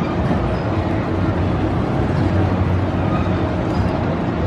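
Steady outdoor fairground background noise with a low, even hum underneath, like a nearby engine or generator running.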